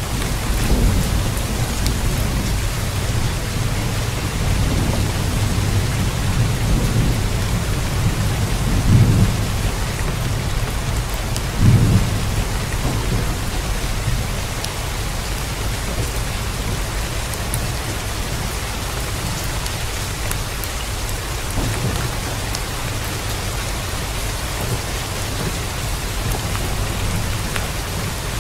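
Steady heavy rain with low rolling thunder underneath, swelling in two stronger rumbles about nine and twelve seconds in.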